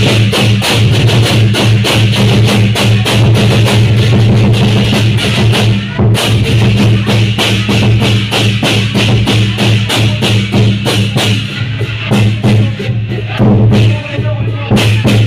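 Lion dance percussion: a Chinese drum, clashing cymbals and gong beating a fast, steady rhythm.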